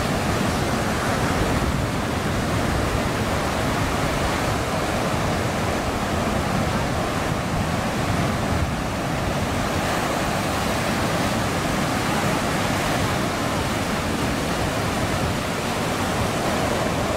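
Ocean surf washing onto a beach: a steady, unbroken rush of noise.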